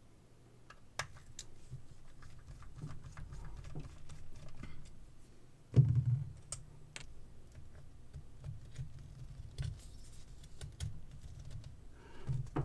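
A small metal pick or screwdriver clicking and scraping against the LED board and plastic housing of an opened LED bulb, with scattered light ticks and handling noise. A single louder knock comes about six seconds in.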